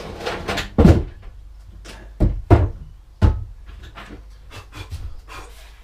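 Someone rummaging through workshop storage: a string of knocks, clunks and scrapes as objects are moved about, loudest a little under a second in and again between about two and three and a half seconds in.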